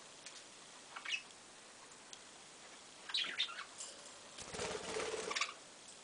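Budgerigar flapping its wings in a rapid flutter for about a second near the end, after a few short high-pitched sounds.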